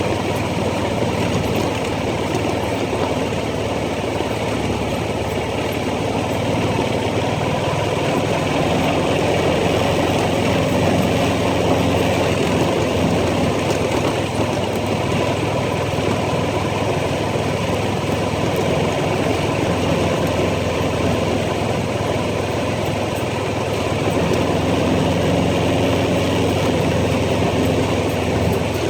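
ATV engine running steadily as it is ridden along a trail, swelling a little now and then with the throttle.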